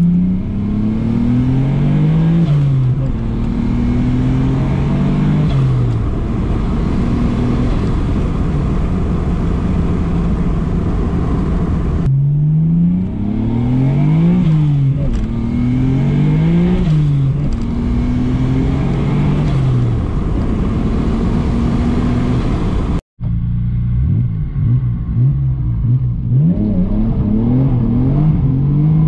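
Nissan Skyline R32 GT-R's twin-turbo RB26DETT straight-six, heard from inside the cabin, accelerating hard through the gears: the engine note climbs, drops at each upshift and climbs again, several times over. The sound cuts abruptly twice between separate runs.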